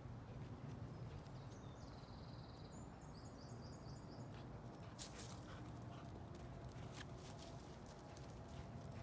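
Quiet outdoor ambience with a low wind rumble; a small bird sings a short phrase of high repeated notes between about two and four seconds in, and a few soft footfalls or thuds come in the second half.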